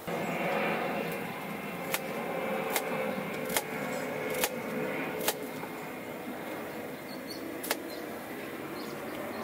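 Knife cutting zucchini against a small cutting board: six sharp knocks, about one a second, then a pause before the last one. A steady hiss runs underneath.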